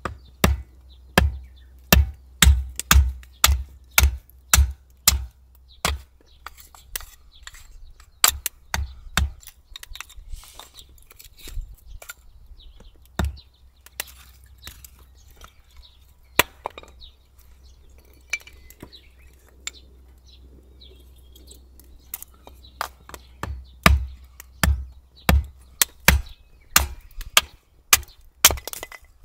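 Small hatchet chopping a stick of firewood on a wooden chopping block, splitting it into kindling. There is a quick run of sharp chops, about two a second, at the start, scattered strikes in the middle, and another quick run near the end.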